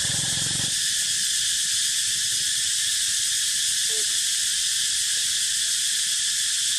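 A steady, high-pitched insect chorus droning without a break.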